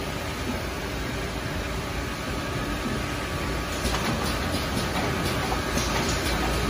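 Tissue paper rewinding machine running steadily: rollers and drive give a continuous mechanical rumble with a faint steady whine, and a few light clicks and rattles come in from about 4 seconds in as a finished log is moved out.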